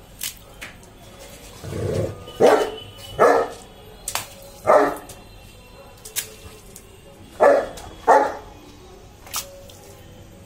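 Saint Bernard dog barking: about six barks, a run of four and then a pair, with a few short sharp clicks between them.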